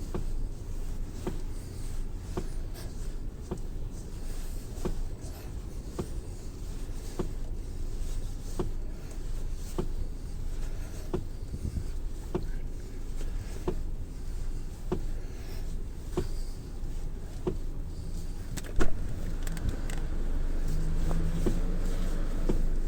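Knocking in a Hyundai Creta's steering column: sharp knocks about every three-quarters of a second over a low steady hum, with one louder thump a few seconds before the end. The knocks come from a faulty steering shaft with electric power steering unit, the part the dealer replaces.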